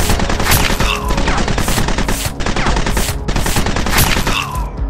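Rapid automatic machine-gun fire sound effects over background music. A falling whine cuts through about a second in and again near the end. The firing stops just before the end.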